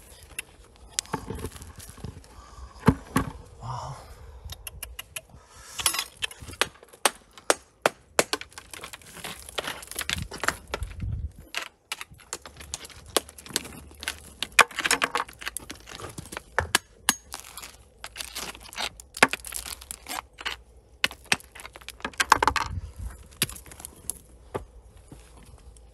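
Rocks and stones knocking and clicking as they are dug out by hand: many irregular sharp taps and cracks, some in quick clusters.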